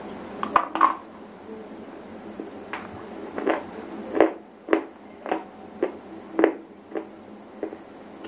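Close-miked biting and chewing of a chalky white shele stone: two sharp bites about half a second in, then a run of crisp crunches as it is chewed, roughly two a second.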